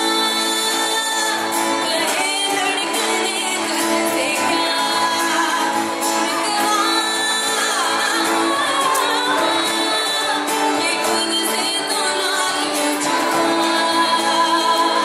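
Live singing into a microphone with acoustic guitar accompaniment, a wavering vocal melody over held chords.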